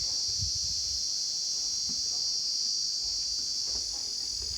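Crickets chirring loud, one steady unbroken high-pitched drone.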